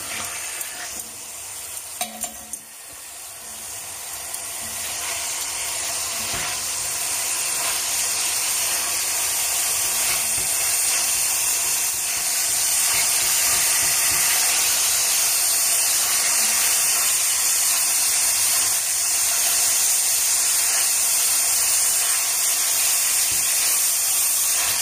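Two whole chickens sizzling in hot oil in an enamelled cast-iron pot as they brown. The sizzle grows louder over the first several seconds and then holds steady, with a few light knocks about two seconds in.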